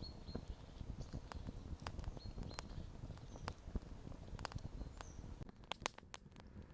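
Campfire crackling, with irregular sharp pops and snaps over a low rumble, growing busier near the end, while a mug of chaga heats on the fire. A few short high chirps sound through it.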